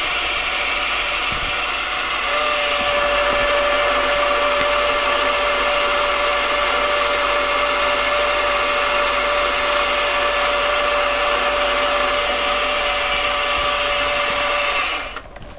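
AMA 714B mini lathe running steadily, its chuck spinning a brass bar while the tool takes a very light second pass along it. A steady whine joins about two seconds in, and the lathe stops about a second before the end.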